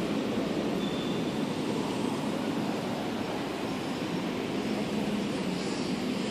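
Steady road traffic noise: an even, unbroken low rumble with no single vehicle standing out.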